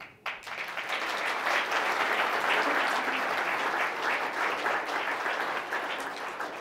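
An audience applauding: dense clapping from many people breaks out about a quarter second in, holds steady, and starts to fade near the end.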